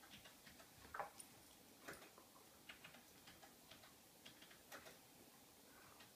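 Faint, irregular clicks and scuffs of German shepherds' claws and paws on a laminate floor as two of them play, with one slightly louder knock about a second in.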